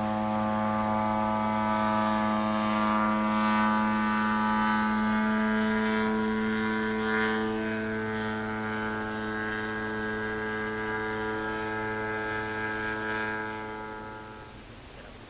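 Steady drone of a radio-controlled tow plane's engine and propeller at constant throttle, one even pitch, fading away near the end.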